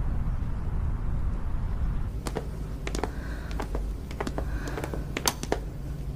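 A low steady rumble, then from about two seconds in irregular footsteps clicking on a hard, polished lobby floor as two people walk, over a low steady hum.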